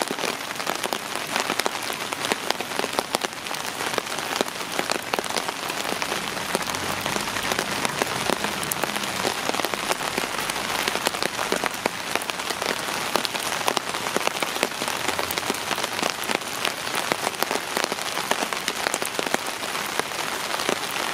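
Heavy rain falling on a pond's surface: a dense, steady patter of drops splashing into the water.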